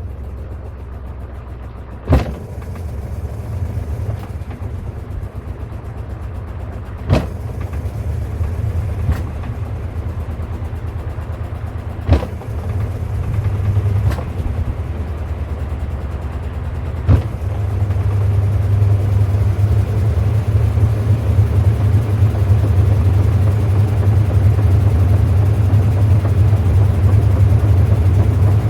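Sharp ES-S119 washing machine on its wind-spin cycle: the drum motor runs with a steady low hum, broken by a sharp click about every five seconds. The hum grows louder and steps up about two-thirds of the way through as the spin speeds up.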